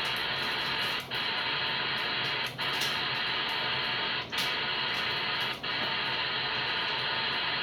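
Music with guitar coming through a radio receiver's speaker, with the narrow, muffled sound of AM radio. It dips briefly every second or two.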